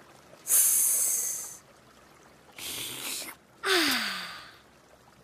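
Cartoon characters slurping tea from cups: three noisy, hissing slurps, the last trailing into a breathy, falling 'ahh' of satisfaction.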